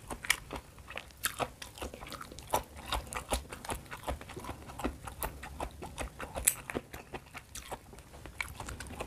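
A person chewing food close to the microphone, with irregular crunches and clicks several times a second.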